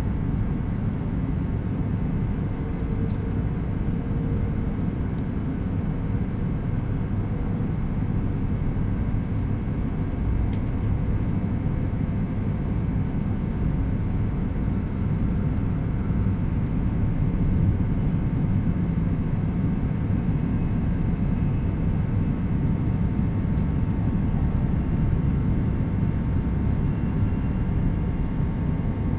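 Running noise of an E2 series Shinkansen heard inside the passenger car: a steady low rumble of the wheels and track, with a faint steady hum of the traction motors.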